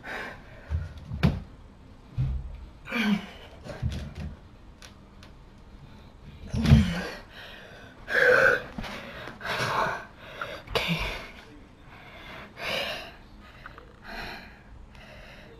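Hard, gasping breaths, roughly one a second, from a boy winded by a long set of pull-ups, with a few short low thumps in the first few seconds.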